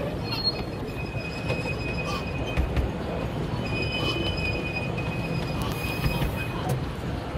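Miniature 10¼-inch gauge steam train running, heard from a carriage behind the locomotive: a steady rumble of wheels on rail, with high-pitched wheel squeal coming and going as the train rounds a curve.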